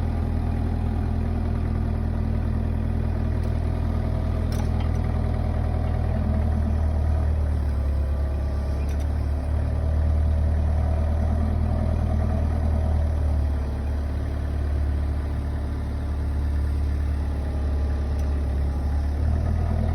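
Vehicle engine idling steadily with a low hum, rising a little in strength for several seconds midway, with a few faint clicks over it.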